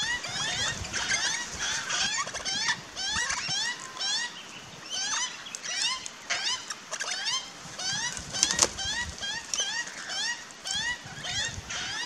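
Birds calling busily: a steady stream of short, rising chirps, several a second, with a single sharp knock about two-thirds of the way through.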